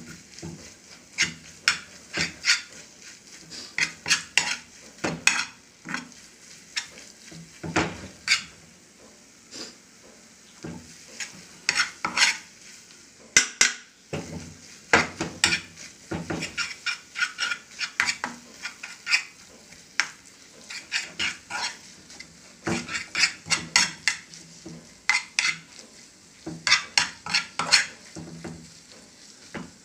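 A spatula scraping and knocking against a frying pan as tuna with onions is stirred and turned over the heat, in irregular clusters of quick scrapes and clicks with short pauses between. A faint sizzle from the frying food runs underneath.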